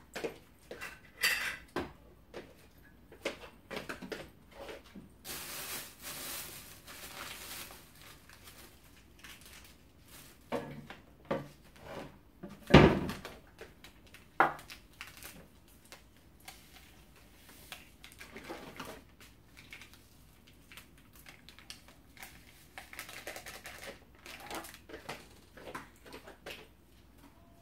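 Kitchen clatter of dishes and cutlery: cups and a spoon clinking and being set down, with a stretch of rushing noise a few seconds in and one loud knock about halfway through.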